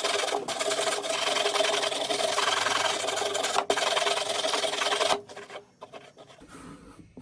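A small electric power tool running with a steady motor pitch while abrading a surface with a scraping hiss, cutting off about five seconds in; faint handling sounds follow.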